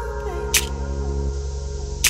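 Channel intro music: held notes stepping down in pitch over a deep bass, with a short sharp hit about half a second in.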